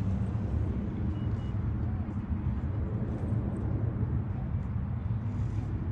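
Outdoor field recording with a steady low rumble, as of a commercial jet airliner flying overhead.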